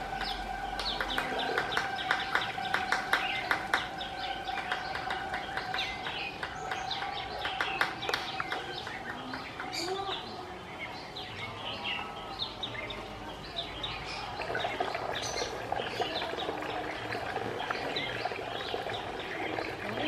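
Birds chirping and twittering throughout. In the first half there are many quick, irregular sharp taps, a fulvous-breasted woodpecker pecking at dry bamboo poles.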